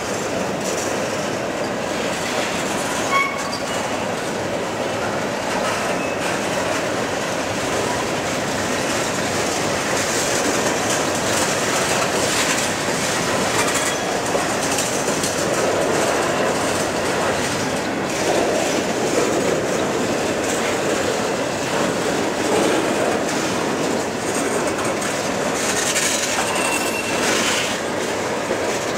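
Freight train cars (covered hoppers and a tank car) rolling past close by: a steady rumble and rattle of steel wheels on the rails, with a couple of short, faint wheel squeals, one about three seconds in and one near the end.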